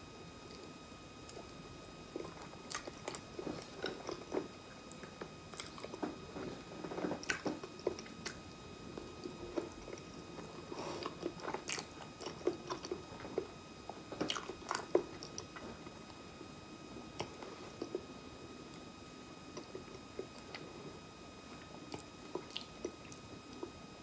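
Close-miked chewing of soft ripe banana: wet, sticky mouth clicks and smacks, busiest in the first half and thinning out later.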